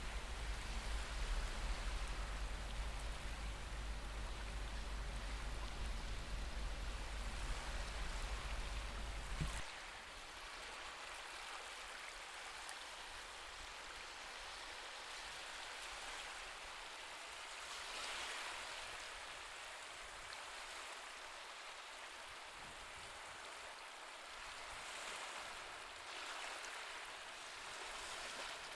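Recorded ocean waves washing softly, a steady hiss with gentle swells every several seconds. A low hum underneath stops suddenly about ten seconds in.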